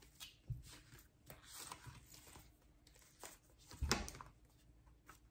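Light handling noise from a cardboard eyeshadow palette box being taken apart: a few faint clicks and rustles, with one sharper knock about four seconds in.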